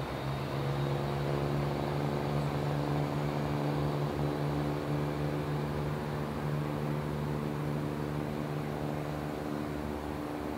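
Southern Class 171 Turbostar diesel multiple unit's underfloor diesel engines running steadily with a deep hum as the train pulls away along the platform.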